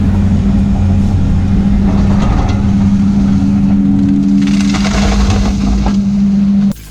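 A heavy machine's engine running steadily with a constant low hum. It cuts off abruptly near the end.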